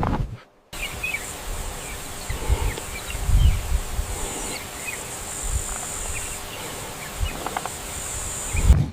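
Insects shrilling in a steady high drone over outdoor ambience, with a few faint chirps and low thumps. The bed cuts in abruptly just under a second in and stops just before the end.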